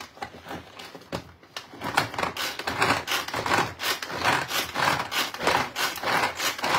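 Tupperware pull-cord chopper being worked by repeated pulls of its cord, the blades spinning through chunks of cheese to grate it. The pulls start about a second and a half in and come in quick succession, several strokes a second.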